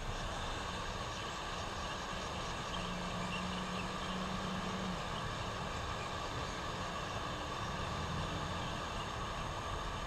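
Hot-air rework gun blowing steadily over a circuit board, reflowing the solder under a replacement CPU chip.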